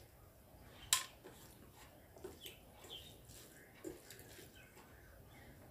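Fingers mixing rice in a steel plate: faint soft squishing with light clicks against the metal, and one sharper click about a second in.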